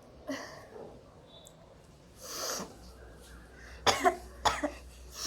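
A person sneezing and coughing: one breathy burst about two seconds in, then a quick run of four sharp bursts near the end.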